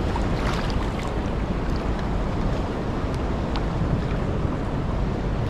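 Wind buffeting the microphone over choppy sea, with water washing and slapping around a kayak's hull in small, irregular splashes.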